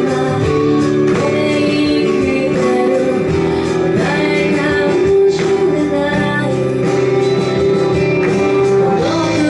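A woman singing a J-pop song live into a microphone over instrumental accompaniment.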